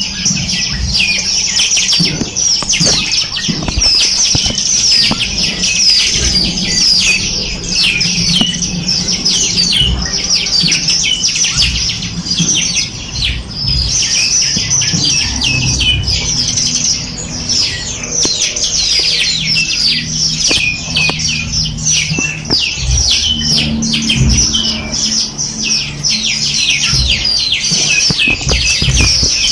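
A dense chorus of many small songbirds chirping and twittering at once, with rapid, high, overlapping notes. A low steady background sounds underneath.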